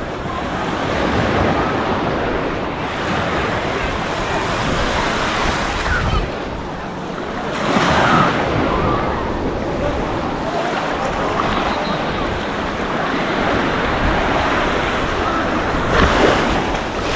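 Small waves breaking and washing up on a sandy beach, the surf rising in surges several seconds apart.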